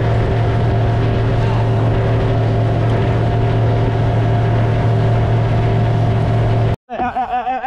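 A boat motor running at a steady speed: a constant low hum with overtones over a steady hiss, which cuts off abruptly near the end.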